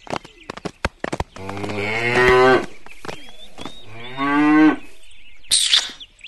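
Cow mooing twice: a long moo and then a shorter one. Birds chirp and a few sharp clicks sound around them.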